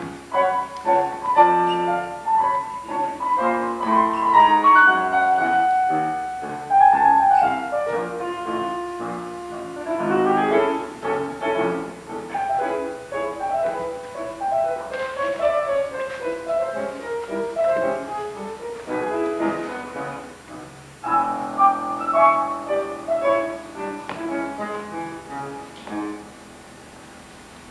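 Piano playing a quick, busy instrumental passage of many short notes, breaking off shortly before the end.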